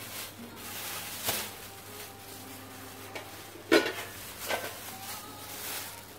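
Plastic wrapping rustling as a glass lid is handled on a stainless-steel steam pot, with a sharp clink of the lid against the pot about three and a half seconds in and a lighter knock about a second later.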